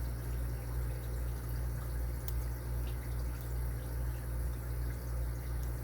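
Faint ticks of a lock pick setting pins in a small brass padlock, heard a few times near the middle, over a steady low hum.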